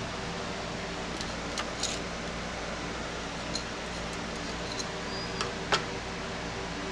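Light metallic clicks and taps of hand tools against engine parts, about seven scattered strikes with the loudest a little before the end, over a steady background hum.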